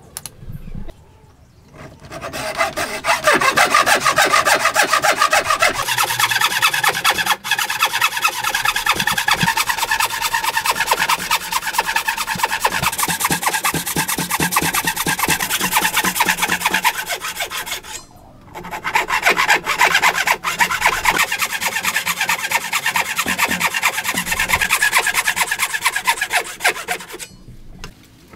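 Hand saw cutting into the end grain of a hardwood block: a steady rasp of fast, even strokes. It stops briefly about two-thirds of the way through, starts again, and stops near the end.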